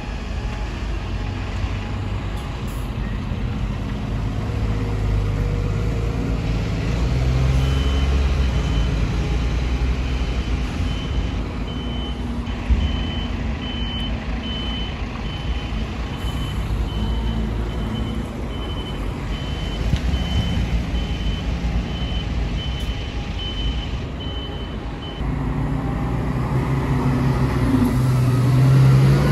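Buses and a coach driving slowly past, engine noise swelling as each goes by and loudest as the coach passes near the end. From about eight seconds in until a few seconds before the end, a vehicle's reversing alarm beeps at a steady, even rate.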